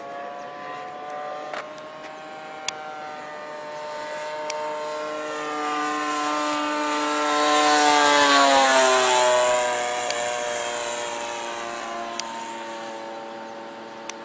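Radio-controlled model airplane making a pass. Its motor and propeller tone swells as it approaches, drops in pitch as it passes about eight seconds in, then fades away.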